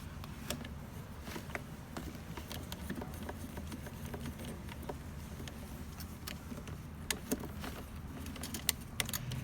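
Scattered light clicks and rattles of a garden hose's threaded coupling being handled and screwed onto the water inlet of an electric pressure washer, over a steady low hum.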